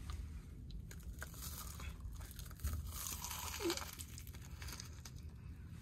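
Faint crunching and crinkling as a person bites into a deep-fried Korean hot dog crusted with fried potato cubes, with a short hum from the eater a little after the middle.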